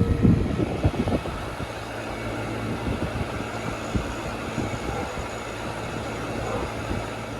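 Gibson (Nordyne) central air conditioner just after starting up, its Bristol reciprocating compressor running: a few low thuds in the first second, then a steady low hum under an even rush of noise.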